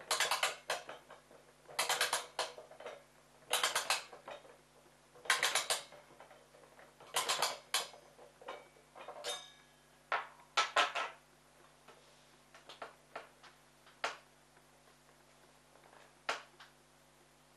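Clockwork spring motor of a Bing Kiddyphone tin toy gramophone being wound by key: a burst of ratchet clicking with each turn, about every two seconds. Near the end there are only a few scattered clicks and knocks.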